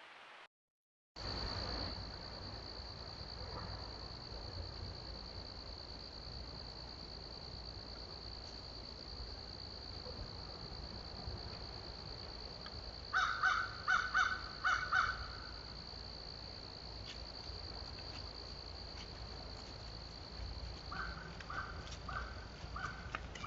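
Crows cawing: four loud caws in quick succession about halfway through and four fainter caws near the end, over a steady high-pitched whine.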